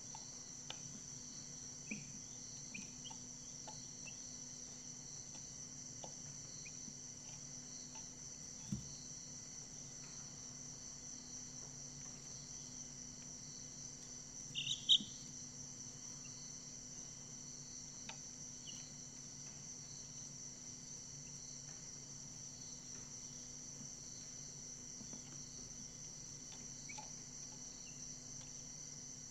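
Crickets keep up a steady high trill throughout. A few faint ticks and a soft knock near nine seconds sound over it, and a chick gives a short, loud peep about fifteen seconds in.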